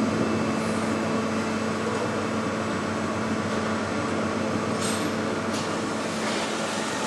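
Steady machine hum with a constant low tone and an even hiss above it, unchanging throughout.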